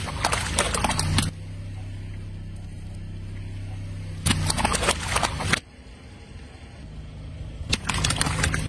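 Car tyre rolling onto water balloons on asphalt, bursting them with crackling pops and splashes in three bouts: at the start, about four and a half seconds in, and near the end. A steady low hum of the car's engine runs between the bouts.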